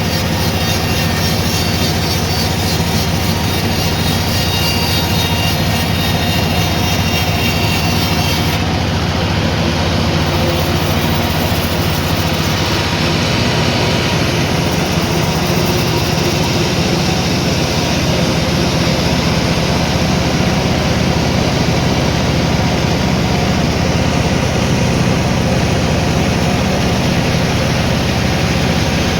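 Sawmill machinery running steadily with a loud, even motor hum; the high hiss thins out abruptly about eight seconds in.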